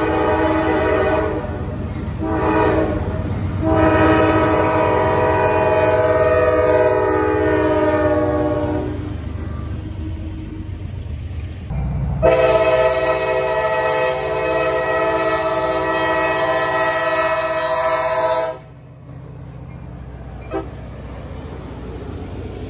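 Diesel locomotive horn blowing long blasts over the rumble of a passing freight train. The first stretch has short breaks about one and three and a half seconds in and ends about nine seconds in; a second long blast runs from about twelve to eighteen seconds, then the sound drops abruptly to a quieter rumble.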